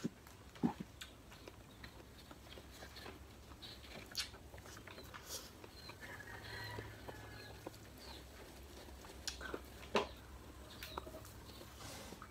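Eating sounds at a table: scattered soft smacks and clicks of chewing and picking apart grilled fish with the fingers, two of them sharper, about half a second in and about ten seconds in. A faint high chirping runs briefly in the middle.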